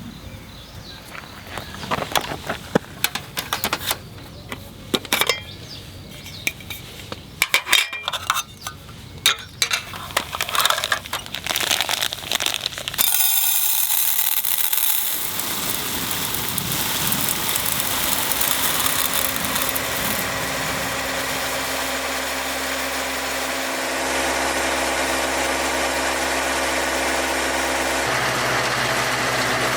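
A string of sharp clicks and knocks, then an abrupt change to an engine running steadily, its tone shifting a couple of times.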